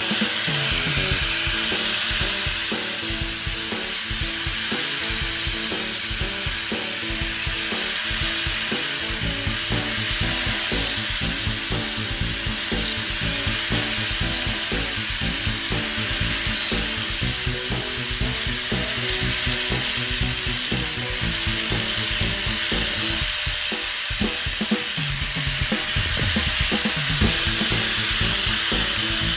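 Electric angle grinder with a flap disc running at full speed with a steady high whine, grinding the edge of a slotted steel angle bar.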